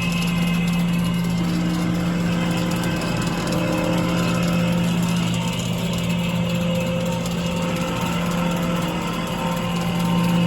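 Nilfisk Advance SC1500 REV walk-behind floor scrubber running with a steady, loud, low hum and fainter higher tones over it. This is the weird bad sound the machine has been making.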